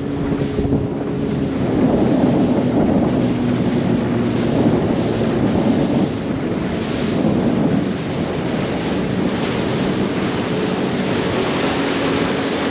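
Wind buffeting the microphone and water rushing around a RIB under way, the boat engine's steady hum mostly buried beneath it and coming through more clearly near the end.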